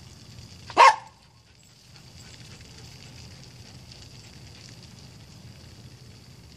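A single short, loud animal call, such as a bark, about a second in, over a faint steady hiss and low hum.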